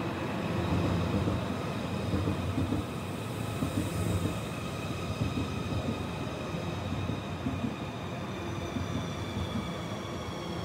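A CR400-series Fuxing high-speed electric train running past a station platform at speed: a steady, dense rumble of wheels and rushing air, with several thin, high whining tones above it that drift slightly lower in pitch near the end.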